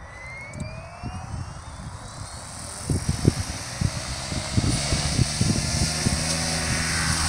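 SAB Goblin 570 electric RC helicopter spooling up on the ground: a whine rising in pitch, then the rotor settling into a steady low hum that grows louder toward the end, with irregular low thumps.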